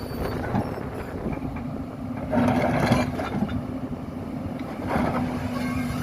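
Hyundai R220 excavator's diesel engine running at a steady pitch under work, with a louder rushing surge about two and a half seconds in and a smaller one near five seconds.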